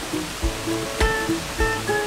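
Background music: plucked guitar notes over a steady beat, about one beat every 0.6 seconds.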